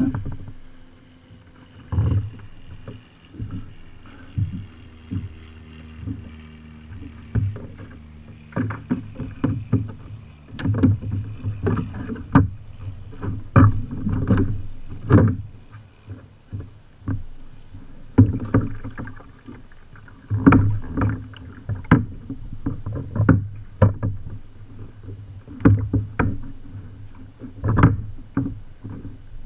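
Irregular knocks and thumps on the plastic hull of a Native Watercraft Slayer Propel 10 pedal kayak, carried straight into a camera mounted on the boat, while a hooked bass is fought from it. The knocks come about one or two a second from several seconds in, over a faint steady hum at the start.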